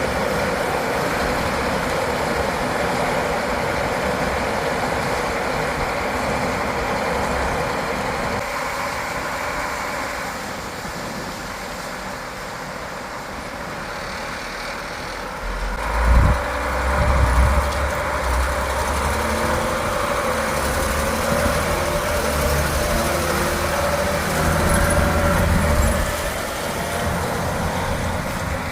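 Heavy harvest machinery running steadily with a constant engine drone. Deeper low rumbles swell up about halfway through and again near the end.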